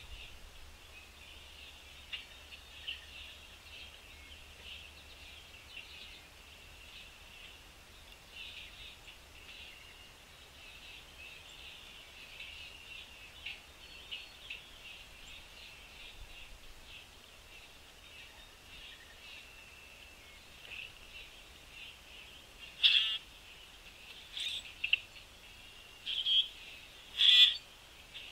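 Birds chirping and twittering in a steady high-pitched stream. Near the end come a few loud, sharp chirps close by.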